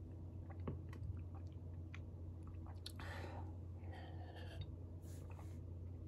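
Close-up chewing of spicy instant noodles with small wet mouth clicks, a breath about three seconds in, then sips from a glass of milk.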